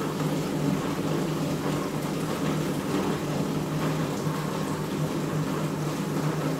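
A steady low hum with a faint hiss behind it, unchanging throughout.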